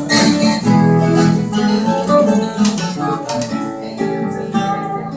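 Ten-string viola caipira playing a plucked and strummed instrumental introduction, loudest in the first two and a half seconds and then a little softer.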